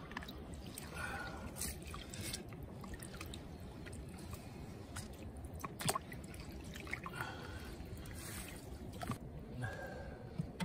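Water dripping and trickling, with scattered sharp clicks and knocks, the loudest about six seconds in.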